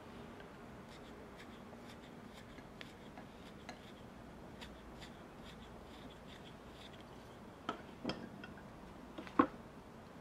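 Hand tools carving wood: light, irregular little clicks and scrapes as the blade nicks and shaves the wood. A few louder knocks come near the end, the loudest about a second before it stops.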